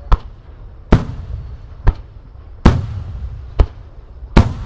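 Starmine fireworks barrage: aerial shells bursting in quick succession, with about six sharp booms roughly one every 0.8 seconds, each trailing off in a rolling echo.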